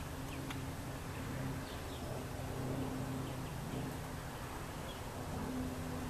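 Steady low droning hum with a constant pitch throughout. A few faint, short, high bird chirps are scattered over it.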